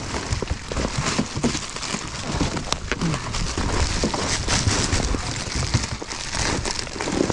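Water splashing and pattering, a dense crackling patter of drops and small splashes.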